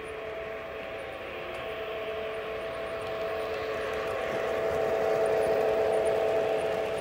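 O-scale model train running on its track: a steady two-note motor whine over the rolling noise of wheels on rail, growing louder about five seconds in as the train comes close, then easing off.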